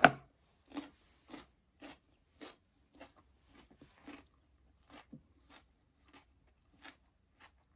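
A person chewing a mouthful of crisp raw salad close to the microphone. A loud crunch at the start is followed by a steady run of crunchy chews, a little under two a second.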